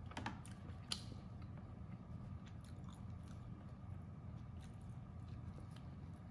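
Quiet close-miked eating-show sounds of Peking duck wraps being made and eaten: scattered soft clicks and crackles, with a sharper click about a second in, over a low steady hum.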